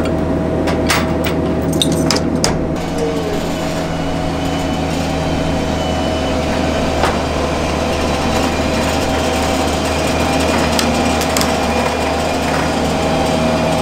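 Ride-on industrial floor sweeper's small engine running with a steady hum as it is driven slowly up the ramps onto a trailer. A few sharp metallic clanks come in the first couple of seconds.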